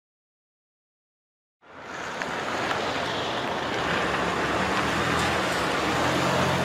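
Dead silence, then about a second and a half in a loud, steady rushing noise sets in, with a faint low hum beneath it.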